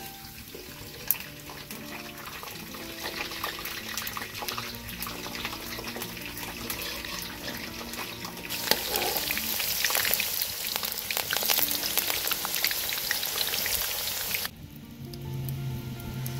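Hot oil sizzling and crackling in a large wok as food fries, growing louder about halfway through and cutting off suddenly near the end. Background music with steady held notes plays underneath.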